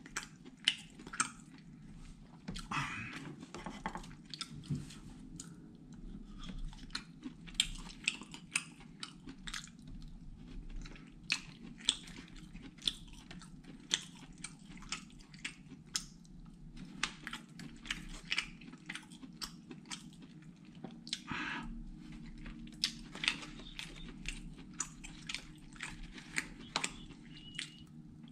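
Close-up mouth sounds of someone chewing satay meat, with many sharp, wet mouth clicks. A steady low hum runs underneath.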